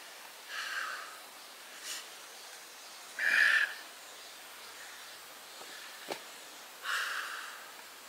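A person's heavy breathing close to the microphone: four breaths a couple of seconds apart, the loudest about three and a half seconds in. He is out of breath from climbing in stifling heat.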